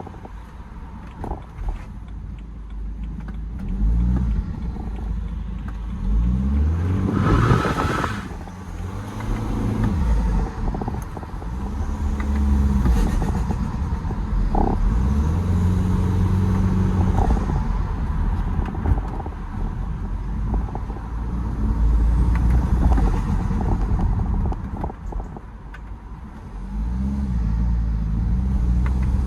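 BMW 320d's N47 four-cylinder turbodiesel with an open air intake pulling hard several times, its pitch rising and then dropping as the throttle is lifted, with turbo flutter on lift-off. A brief rushing burst comes about seven seconds in.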